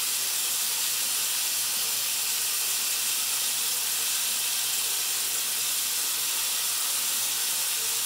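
Water running steadily from a bathroom tap into the sink, an even hiss.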